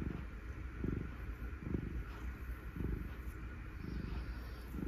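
Domestic cat purring close to the microphone: a steady low rumble that swells with each breath, about once a second.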